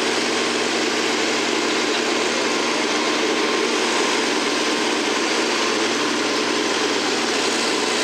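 Farm stock pulling tractor's engine running steadily under load as it drags a weight-transfer sled down the track.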